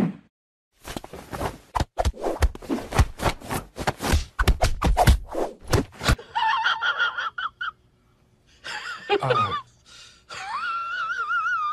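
A hand patting a plump cat's belly in quick succession, a rapid run of soft slaps. Around six seconds in, after a break, come high wavering calls with a trembling pitch.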